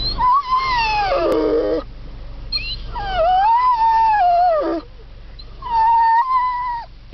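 Rhodesian Ridgeback howling at mountain goats: three long howls. The first slides down in pitch, and the next two hold steadier before dropping off at the end.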